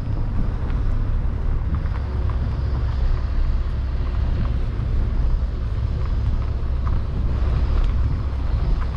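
A car driving, its engine and tyres giving a steady low hum, with a few faint clicks.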